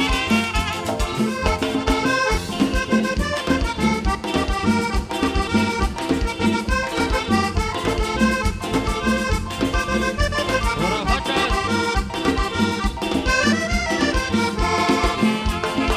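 Live Latin dance band music with a steady beat and an instrumental lead melody.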